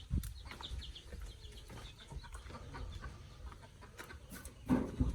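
Chickens clucking faintly, with louder low knocks near the end.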